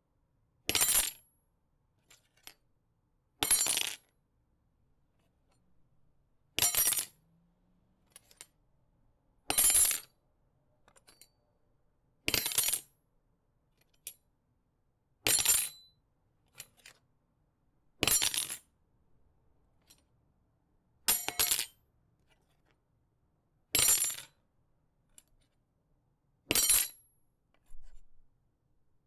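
A knife dropped onto a hard floor, again and again: ten sharp metallic clatters about three seconds apart, each with a brief ring.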